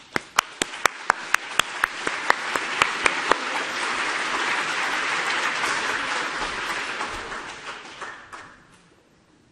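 Audience applauding. One loud, close clapper beats about four claps a second at first, while the applause swells to a dense peak and then fades out near the end.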